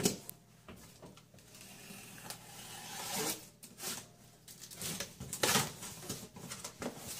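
A cardboard shipping carton set down with a knock, then irregular scraping and rustling as its top seam is slit open, loudest about five and a half seconds in.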